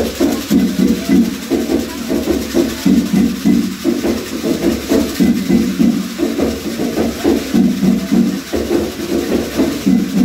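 Candomblé ritual music: a group of voices singing over drumming in a quick, steady rhythm.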